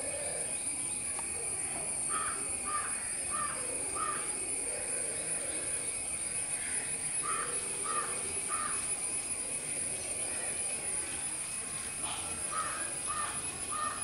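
Brahminy kite calling from its perch: three runs of short, repeated call notes, three or four notes to a run, about half a second apart, with a few seconds' pause between runs.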